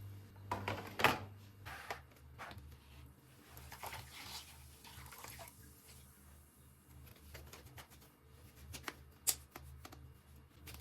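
Things being handled: scattered light clicks, taps and short rustles, the sharpest about a second in and near the end, over a low steady hum.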